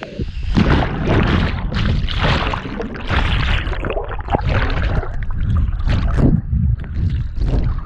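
Water rushing and splashing in uneven surges, with wind buffeting the microphone, as on a water park ride.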